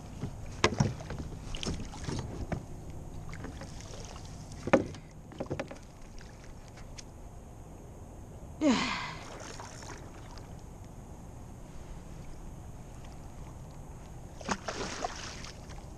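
A hooked red drum thrashing at the surface beside a kayak: several sharp splashes and knocks in the first few seconds, a louder splash with a dropping gulp about nine seconds in, and more splashing near the end.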